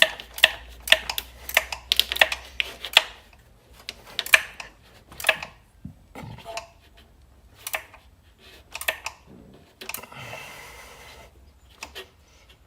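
Hand tools clicking while the bolts of a car's belt tensioner are worked in a tight engine bay. There are sharp clicks about two or three a second at first, then scattered single clicks, and a short rustle about ten seconds in.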